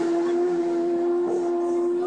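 Racing motorcycle moving away at full throttle, its engine holding a steady high note.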